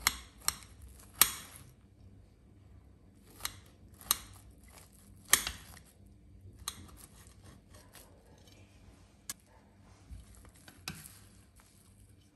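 A knife cutting through a cabbage omelette, its blade clicking and scraping against a ceramic plate. There are about nine sharp, irregular clicks, the loudest near the start and about five seconds in.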